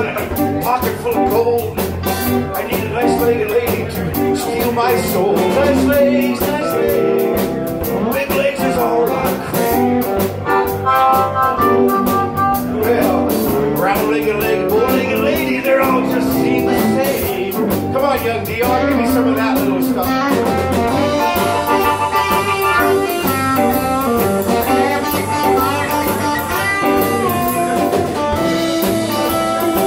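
Live electric blues band playing: electric guitars, bass guitar and drum kit, with a harmonica played through the vocal microphone, its notes bending in pitch.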